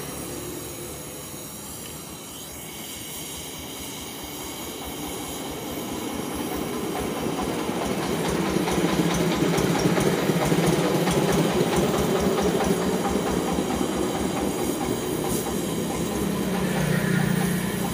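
LPG-and-oxygen torch flame blowing into a brick cavity full of scrap copper, a steady rushing hiss with a rough, fluttering roar. It grows louder over the first several seconds and then holds.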